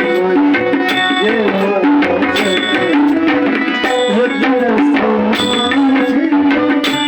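Tabla playing in a bhajan: quick strokes on the right-hand drum ring out high and sharp, while the left-hand bass drum's pitch slides up and down under them.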